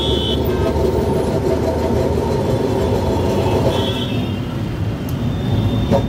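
Kolkata electric tram running along its street track, heard from inside the driver's cabin: a steady rumble of wheels on rail with an even motor hum. Two brief high squeals come through, one right at the start and one about four seconds in.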